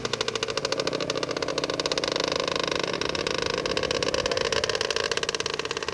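Motorcycle engine running steadily, a fast, even train of firing pulses.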